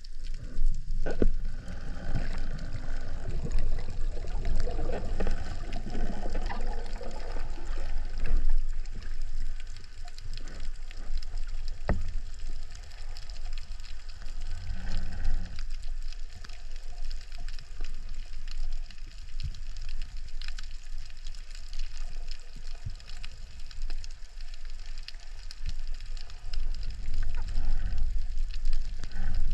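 Underwater sound picked up through a camera in its housing: a steady, muffled low rumble of water moving, with a few faint sharp clicks now and then.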